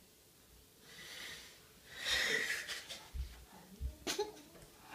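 A boy stifling laughter, breathing out in a few breathy rushes, the loudest about two seconds in. A couple of soft low thumps follow.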